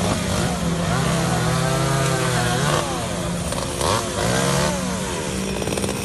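Chainsaw engine running, its pitch rising and falling again and again as the throttle is worked while it cuts up the branches of a fallen tree.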